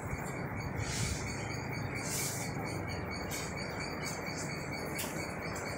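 Outdoor ambience of insects chirping steadily in a high, pulsing tone over a steady background hiss, with two brief hissy bursts about one and two seconds in.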